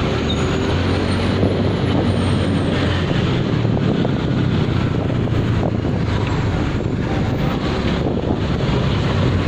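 Steady traffic noise from a slow-moving motorcycle: its engine running and wind buffeting the microphone, with the low drone of large trucks' engines running close alongside.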